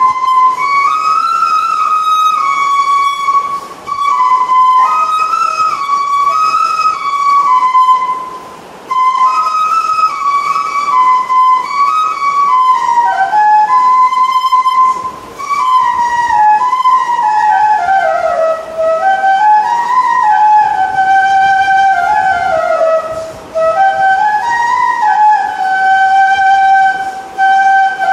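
A solo flute playing a flowing melody, mostly held and stepping notes in the mid range, with short pauses between phrases.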